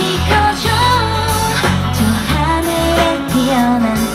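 Live pop-rock band heard through the PA: a woman sings the lead melody into a handheld microphone over a steady drum beat and a low bass line.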